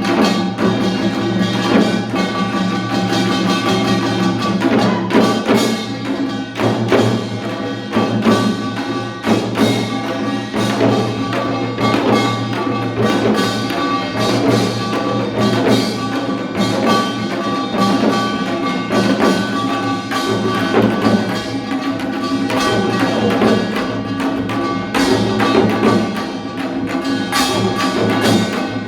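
Live music performance: held instrumental tones with frequent sharp percussion hits throughout.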